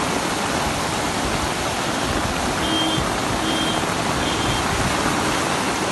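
Floodwater rushing down a street in a heavy downpour: a steady wash of running water and rain. About halfway through, three short electronic beeps sound in a row, less than a second apart.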